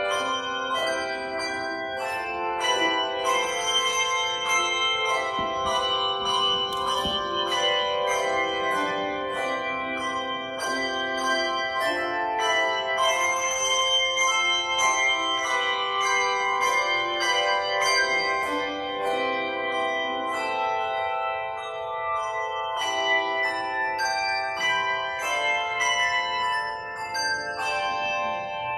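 Handbell choir playing a piece: chords of bells struck one after another and left ringing together.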